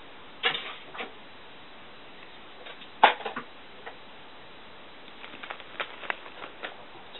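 Cat playing on a wooden floor: a few sharp knocks and thumps of paws, two in the first second and the loudest about three seconds in, then a quick run of light taps and scrabbles near the end.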